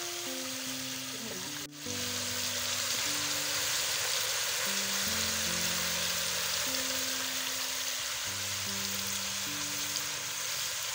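Chopped tomatoes, onions, green peppers and carrots sizzling steadily in a metal saucepan over a wood fire as they fry with salt and seasoning, under background music of slow, held low notes.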